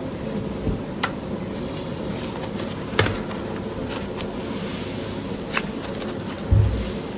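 Slime being handled by hand: scattered small pops and clicks and a short soft thump near the end, over a steady low buzzing hum.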